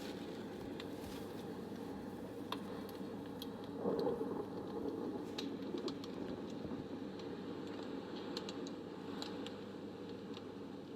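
Scattered small clicks and crackles, irregular and soft, over a steady low background noise, with a brief louder swell about four seconds in.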